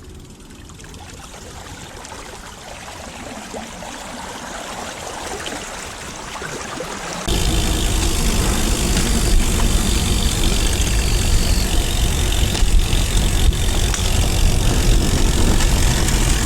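Steady rushing noise of a recumbent trike pushing through flood water, with a heavy low rumble. It builds gradually, then jumps abruptly much louder about seven seconds in and stays loud.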